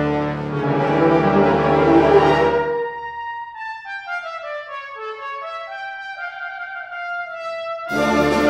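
Brass band playing a slow piece: full sustained chords, then a single brass instrument carries the melody alone for a few seconds, falling and then rising, before the whole band comes back in near the end.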